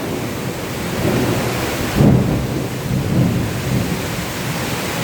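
Heavy tropical downpour pouring steadily, with low rumbles of thunder that swell about two seconds in.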